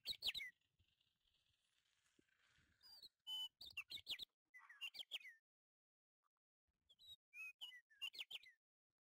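A small bird chirping in four short bursts of quick, sweeping high notes, with pauses between them.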